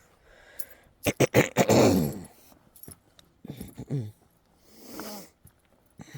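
A man's voice making non-speech sounds: a rough groan falling in pitch about a second in, a shorter falling groan a couple of seconds later, then a soft breath.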